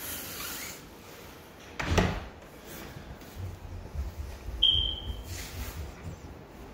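Footsteps and phone-handling noise while walking across a hardwood floor, with one sharp thud about two seconds in and a brief high squeak a little past the middle.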